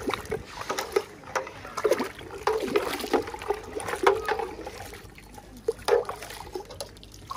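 Water splashing and trickling, broken by many irregular short knocks and clatters.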